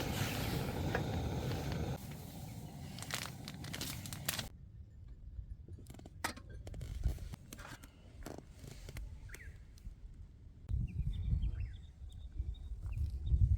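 Outdoor ambience at a mountain campsite: wind buffeting the microphone in gusts, with scattered clicks and a few faint bird chirps near the end.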